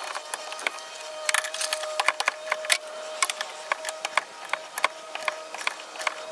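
Socket wrench ratcheting in short runs of sharp clicks, with metal tools clinking, as a rear trailing-arm bushing bolt is tightened toward its 100 Nm factory torque.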